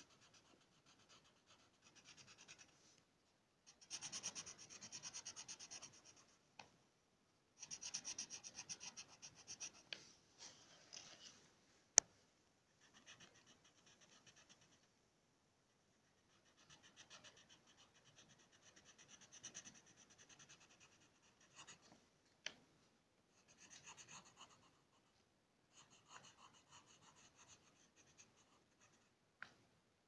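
Faint scratching of a multicolour-lead pencil shading on paper: quick back-and-forth strokes in spells of a few seconds, with short pauses between. A single sharp click about twelve seconds in.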